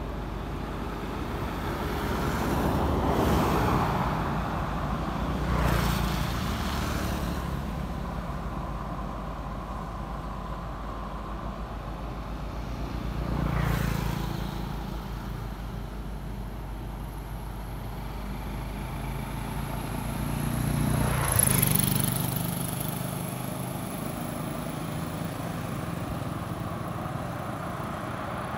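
Road traffic passing, four vehicles in turn, each swelling and fading over a few seconds over a steady low rumble. A thin, steady high-pitched tone joins in about two-thirds of the way through.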